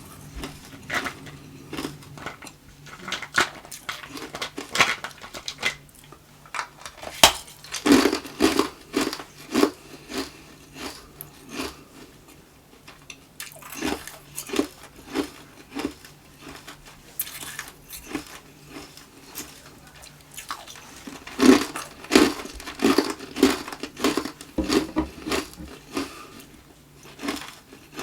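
Hard tube ice being bitten and chewed close to the microphone: loud, irregular crunching and cracking, in dense clusters of rapid crunches with quieter chewing between them.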